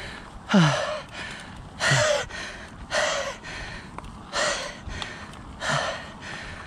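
A mountain biker breathing hard while pedalling: five heavy, gasping breaths about one every second and a quarter, some voiced with a falling pitch.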